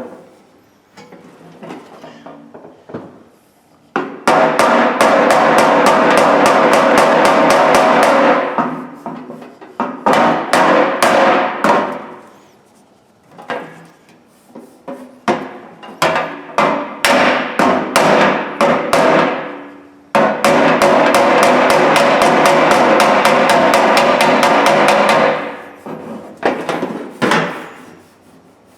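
Hammer beating on the sheet metal of an old Craftsman toolbox to knock out dings and dents: a few light taps at first, then several long runs of fast blows with a metallic ring, separated by short pauses.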